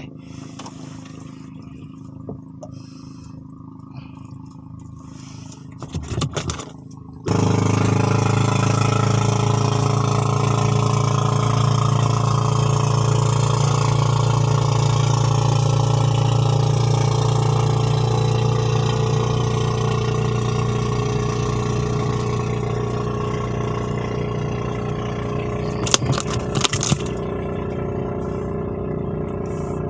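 A small boat engine starts abruptly about seven seconds in, after a brief clatter, then runs steadily at an even speed, easing slightly in level. A few knocks sound near the end.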